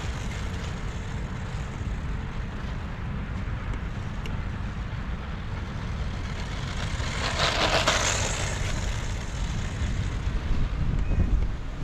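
Wind buffeting the microphone as a steady low rumble, with a brief louder rushing burst about seven and a half seconds in.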